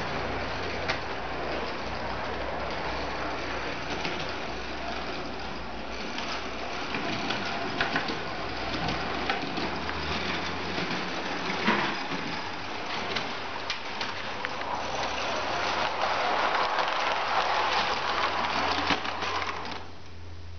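Model trams running on the layout track: a steady mechanical rumble with many small clicks from the wheels and drive. It grows louder in the last few seconds, then drops off abruptly.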